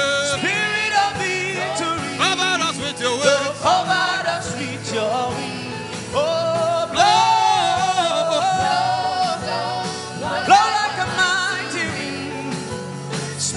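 A gospel worship chorus: a singing voice with long, wavering held notes over a sustained musical backing.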